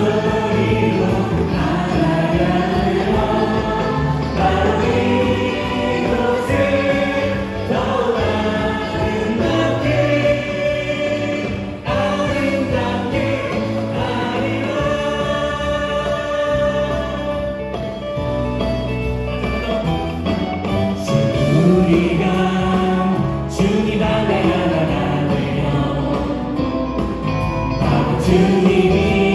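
A praise team of mixed women's and men's voices sings a Korean worship song in unison through microphones, over a continuous instrumental backing with a steady beat.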